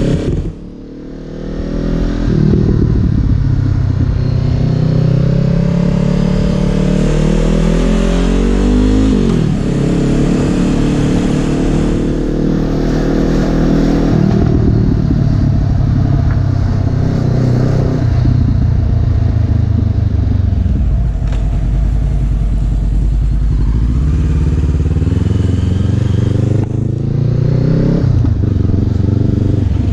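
Honda CB500F parallel-twin engine and exhaust while riding, the engine note climbing steadily and then dropping at each gear change, about four times. Recorded on a GoPro with its microphones covered against wind.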